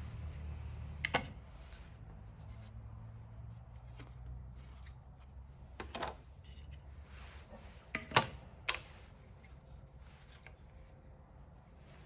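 Carbide-tipped circular saw blades being handled and fitted together: a few sharp clicks and knocks, the loudest about eight seconds in, with a low hum that fades out midway.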